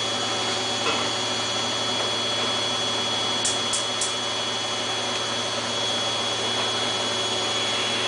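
Samsung WF8804RPA front-loading washing machine in its final spin: the drum turning at a steady speed with a constant motor whine over a steady rushing hum. Three faint high ticks come about halfway through.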